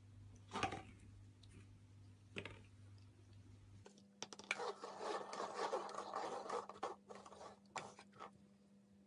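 Paper cups being slid and scraped across the floor by hand as they are shuffled, a dense run of scraping from about four seconds in to about seven. Before that, a couple of short taps as a cup is knocked.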